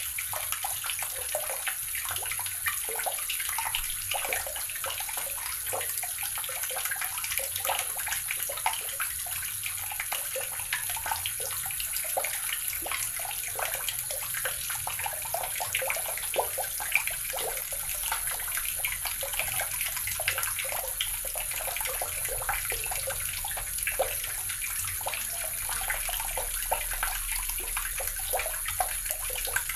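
Water running steadily from a tap and splashing into a basin or tub below.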